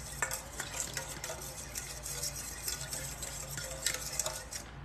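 Fork whisking spice into oil in a stainless steel mixing bowl: a steady run of light, quick metal-on-metal scrapes and clinks.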